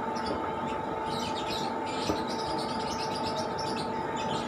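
Small birds chirping in quick, busy runs, thickest in the middle, over a steady background hum.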